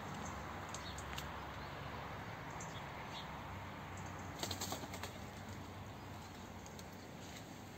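Leaves and branches rustling as someone pushes through dense undergrowth, with a short cluster of crackles about four and a half seconds in, over a low steady background hum.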